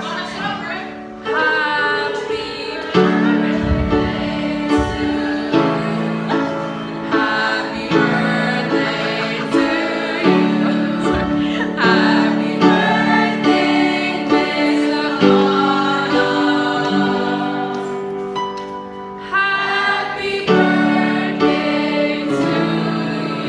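A class of children singing together as a choir, holding long notes in harmony.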